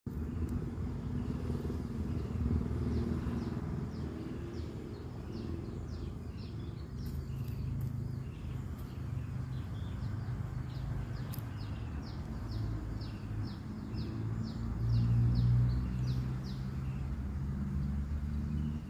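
A steady low rumble that swells about fifteen seconds in, with a bird chirping in long runs of quick, short, high falling notes over it.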